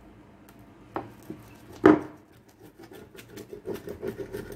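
A metal pizza cutter cutting through a baked pizza on a wooden cutting board: a knock about a second in and a louder one near two seconds, then a quick run of ticks as the blade works through the crust.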